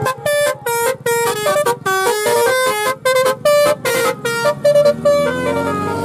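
Telolet horn on a Suzuki minivan playing a fast tune of short, stepped notes, about four or five a second, ending in a few longer held notes about five seconds in.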